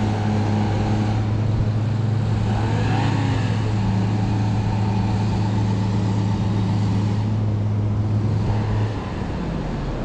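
Truck engines held at steady high revs as a Hummer H3 strains on a tow rope to pull a Toyota Tacoma stuck in deep sand, the Tacoma's wheels spinning and spraying sand. The engine note drops away about nine seconds in.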